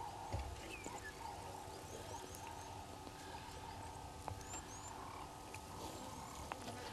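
Faint natural bush ambience: a chorus of short low calls repeating several times a second, with a few quick high bird chirps and whistles over it and a soft low bump just after the start.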